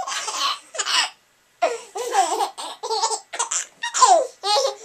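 Seven-month-old baby laughing in a run of short, repeated bursts of giggles, with a brief pause about a second in.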